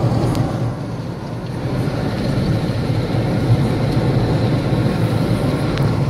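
Cabin noise of a car on the move: a steady low rumble of road and engine noise.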